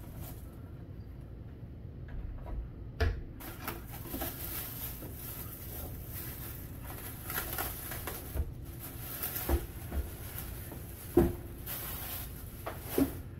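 Plastic bag crinkling and rustling as it is pulled off an indoor electric grill, with several knocks from the grill being handled, the loudest about eleven seconds in.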